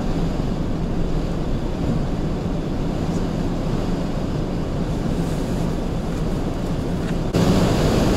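Steady low rumble of wind and vehicle noise heard from inside a car held up in a snowstorm. About seven seconds in, it cuts suddenly to a louder rumble as a snowplough truck comes alongside.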